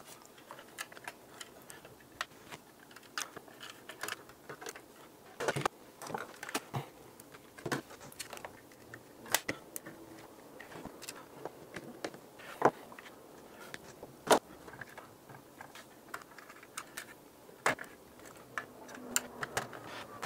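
Irregular small clicks and taps of hand wiring work: a screwdriver fastening wire into a power adapter's screw terminals, and hands handling the plastic case and its parts.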